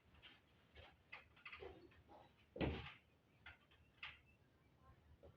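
Scattered light clicks and knocks of small hardware being handled, with one louder knock about two and a half seconds in.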